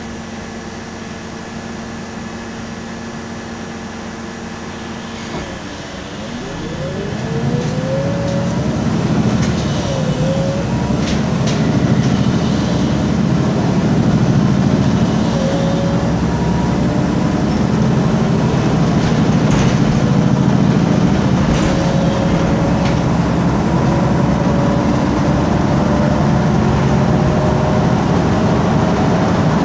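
MAN Lion's City G articulated bus with a CNG engine and ZF Ecolife automatic gearbox, heard from inside the cabin: idling steadily, then about six seconds in pulling away. It grows louder and runs on with a slowly rising whine as it gathers speed, with occasional clicks and knocks.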